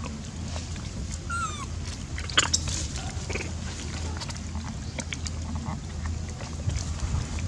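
A troop of long-tailed macaques foraging on the ground. About a second and a half in, one monkey gives a short, wavering squeal. Scattered clicks and rustles run throughout, with a sharp click just after two seconds, over a steady low hum.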